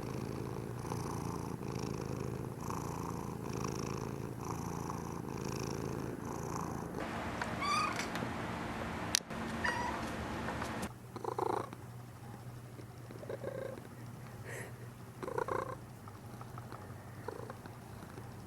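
Domestic cat purring, pulsing with its breathing, with a sharp click about nine seconds in; the purr grows fainter in the second half, broken by a few short soft sounds.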